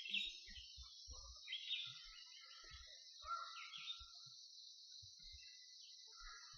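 Steady high-pitched insect drone, like crickets, with a few short bird calls over it in the first four seconds, some sliding downward.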